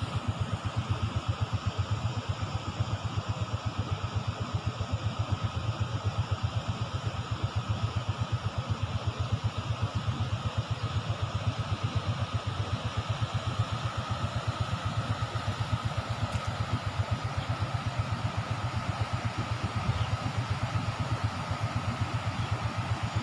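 A small engine idling steadily with a fast, even throb.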